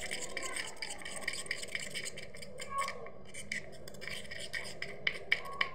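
A spoon stirring a wet slime mixture in a metal bowl, with quick scraping clicks against the bowl and a few sharper clinks near the end.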